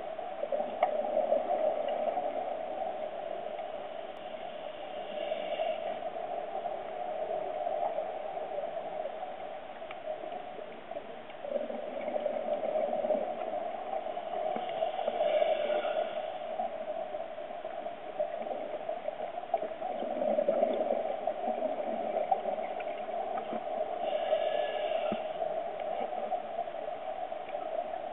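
Underwater scuba breathing through a regulator. Exhaled bubbles gurgle in slow swells, and a short higher hiss comes about every nine to ten seconds, over a steady muffled rush of water noise.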